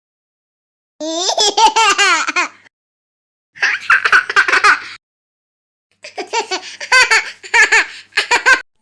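Laughter sound effects between jokes: three separate high-pitched laughs in a row, cut apart by dead silence.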